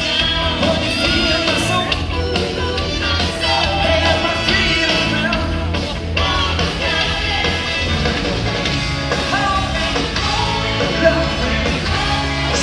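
Live band playing amplified rock music, with a singer's voice over a heavy bass line.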